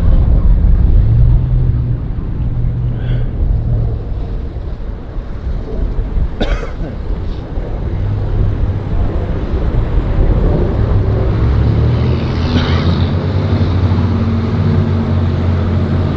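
Strong wind buffeting the microphone in a loud, continuous low rumble, with the steady hum of road traffic underneath and a single sharp click about six seconds in.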